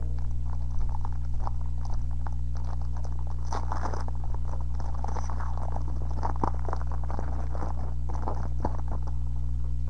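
Foil wrapper of a Pokémon trading card booster pack crinkling and crackling as it is handled and torn open, busiest around the middle. A steady low electrical hum runs underneath.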